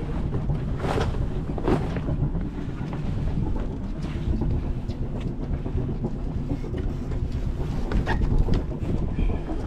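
Wind buffeting the microphone, a steady low rumble, with a few light knocks about a second in, just before the two-second mark, and near the end.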